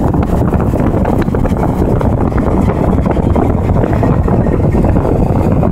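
Steady wind rushing over the microphone of a moving car, mixed with road noise, with no distinct train sounds standing out.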